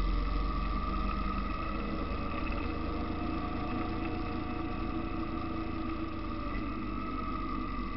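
Motorcycle engine running steadily under way, heard from on the bike, with a steady engine hum over a low road rumble.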